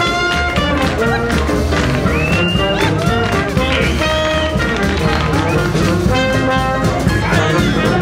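Swing jazz band music led by trumpet and trombone over a steady beat.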